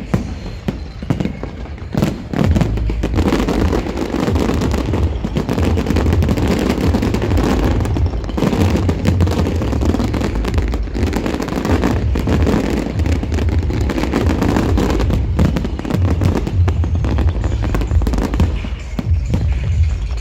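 Aerial fireworks bursting in quick succession, many sharp bangs and crackles, over loud bass-heavy music.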